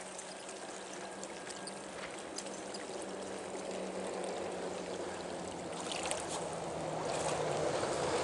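Trout stream water running and trickling steadily, with a few faint clicks near the end.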